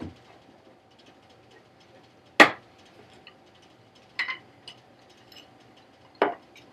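Three sharp knocks about two seconds apart, the first the loudest, as a wooden stair tread is knocked back into place. A faint steady hum runs underneath.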